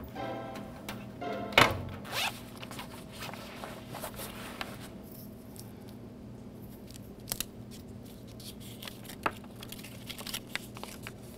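Laundry and paper being handled: cloth swishing, with one sharp snap about one and a half seconds in as it is shaken out, then a folded paper note being unfolded with a few short crinkles near the end, over a low steady hum.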